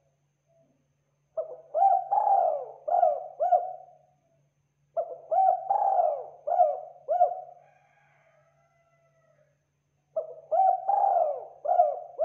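Spotted dove cooing: three separate phrases a few seconds apart, each a quick run of about five coo notes.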